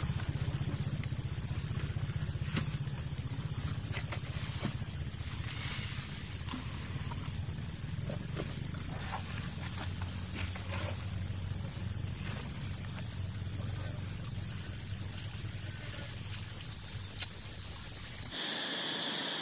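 Steady high-pitched insect drone over a low rumble, with a single sharp click near the end. Just before the end it switches abruptly to a lower-pitched insect buzz.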